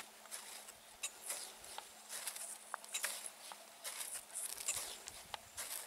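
Crampons biting into firm, crusted snow and ski poles planting as a climber steps up a steep slope: short crunches, two or three a second, in an uneven walking rhythm.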